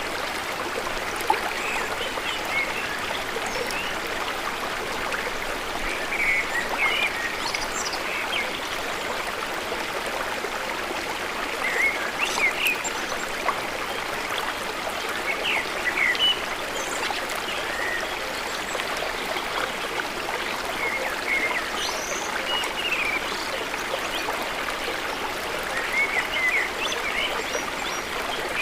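Running water flowing steadily, like a stream, with short bird chirps scattered over it throughout.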